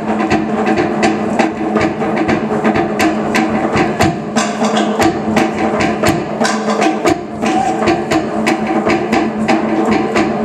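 Fast Polynesian drumming of the kind used for Tahitian hip-shaking dance: sharp wooden log-drum strikes in a rapid, steady pattern, with deeper drum beats underneath.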